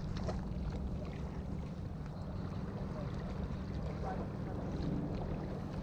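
Wind buffeting the camera's microphone, a steady low rumble, with faint lapping of seawater against the seawall.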